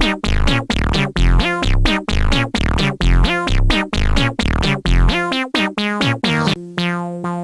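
Electronic funk tune played with a meow sound effect: quick short synth notes that bend in pitch, over a deep bass hit about once a second. About six and a half seconds in, the run stops on one held chord.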